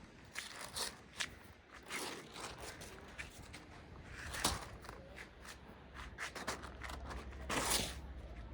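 Wind rumbling low on the microphone, with scattered light rustles and clicks from handling and movement; a longer rustle comes about halfway through and another near the end.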